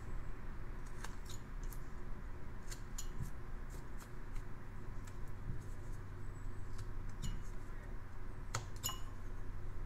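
Carving knife slicing into a basswood block by hand: irregular small crisp snicks and clicks as thin chips are pared off, with two sharper cuts close together near the end.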